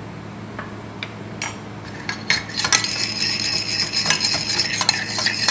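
A metal spoon stirring a port-wine reduction briskly in a stainless steel saucepan: rapid clinks and scrapes of spoon against pan with a ringing metallic tone, starting about two seconds in, over a steady low hum.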